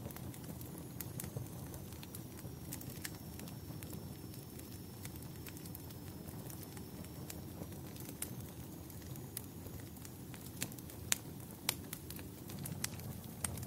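Fire crackling: a steady low rush with scattered sharp pops and snaps, two of them louder near the end.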